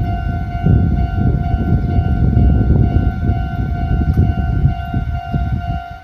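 Japanese railway level-crossing warning bell ringing, a steady electronic ding repeated rapidly. Under it runs a heavy low rumble that eases near the end.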